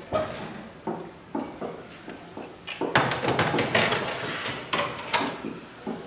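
Metal baking tray sliding onto an oven rack: a scatter of small knocks and clicks, then a louder scraping clatter about three seconds in as the tray goes in, followed by a couple more knocks.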